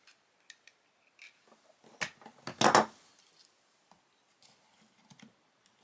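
Penknife blade trimming a small plastic locating peg off a replacement camera screen: a series of small sharp clicks and scrapes, the loudest cut about two and a half seconds in.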